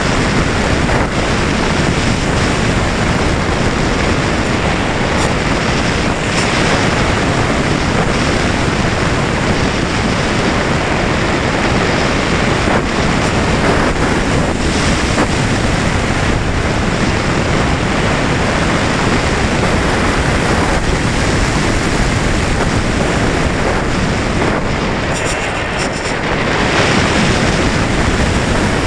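Steady rush of wind over the microphone of a camera mounted on the wing of a flying 3.7 m Valenta Volcano RC sailplane. It eases briefly a few seconds before the end, then rises again.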